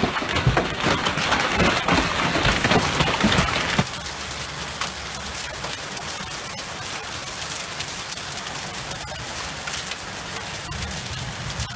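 Hailstorm: a dense clatter of hail and rain hitting a moving car and road. About four seconds in it changes abruptly to a quieter, steadier patter of hail falling on a paved garden path and lawn.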